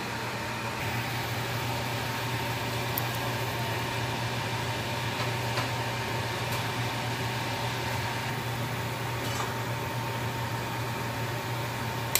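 A steady mechanical hum with an even hiss and a thin steady tone above it, broken by a few faint ticks.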